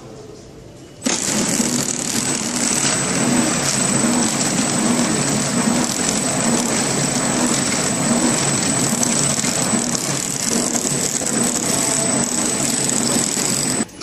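Horizontal flow-wrap packing machine starts up about a second in and runs steadily: dense mechanical clatter with a regular beat about twice a second and a steady high whine, cutting off sharply just before the end.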